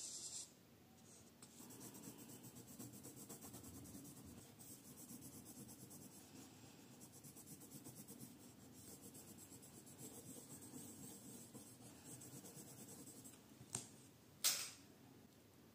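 Pink coloured pencil shading quickly back and forth on notebook paper: a fine, steady scratching of fast, even strokes, after a brief felt-tip marker stroke at the start. Near the end there is a small click, then a short, louder rustle.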